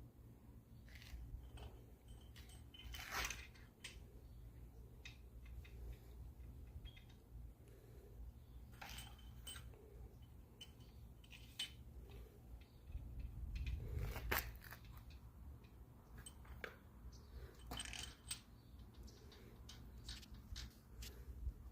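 Faint, scattered metallic clicks and taps of head bolts being handled and threaded into a big-block engine's cylinder head, over a steady low hum.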